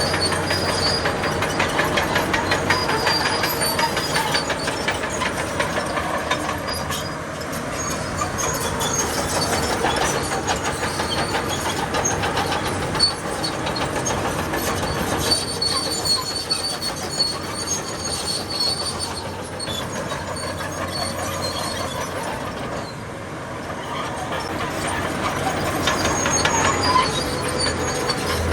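Crawler bulldozer's steel tracks clanking and squealing as it works, a dense metallic clatter with high squeals that come and go.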